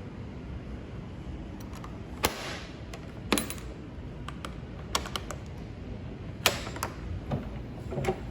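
Several sharp clicks and knocks, spaced a second or so apart and irregular, over a steady low rumble.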